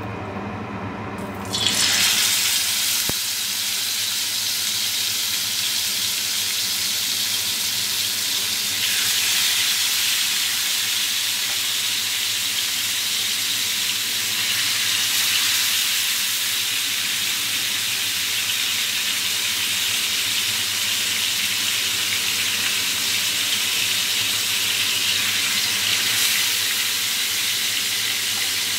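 Yogurt-marinated chicken leg pieces going into hot oil, starting a sudden sizzle about a second and a half in. The frying then keeps on steadily, swelling a little now and then.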